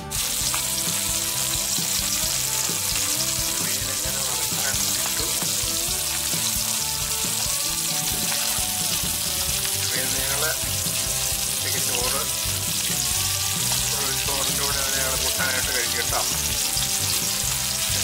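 Two pieces of salt-and-chilli-marinated fish shallow-frying in hot oil in a metal wok: a steady, even sizzle.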